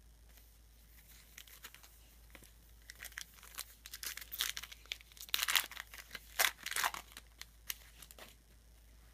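A foil trading-card pack wrapper being torn open and crinkled, in a run of quick papery rips and rustles that is busiest in the middle.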